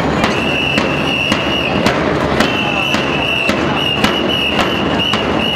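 Murga drums, bass drums with cymbals, pounding a steady beat of about two crashing strokes a second. Over the drums a shrill whistle blows long, held, slightly wavering notes.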